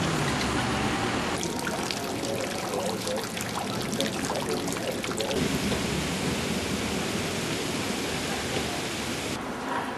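Fountain water splashing and running onto stone in a steady hiss. A dense patter of falling drops comes in about a second and a half in and eases off about halfway through.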